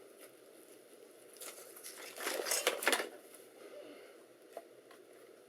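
A few short rustling and knocking handling noises in a quiet room, bunched together in the first half, then two faint clicks.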